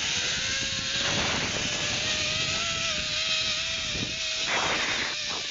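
Zip line trolley pulley running along the steel cable, a steady whine creeping slightly upward in pitch, over a rush of wind noise. There is a short louder rush near the end.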